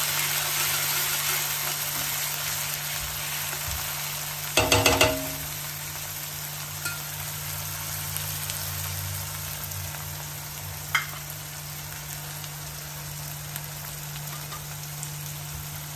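Ginger, garlic, green chilli and coriander paste sizzling in hot oil in an aluminium kadhai, stirred with a spatula at first; the sizzle slowly dies down. A brief louder sound comes about five seconds in.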